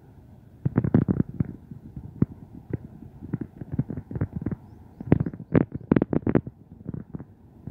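Irregular low knocks and thumps, some in quick clusters, with the loudest run a little past halfway.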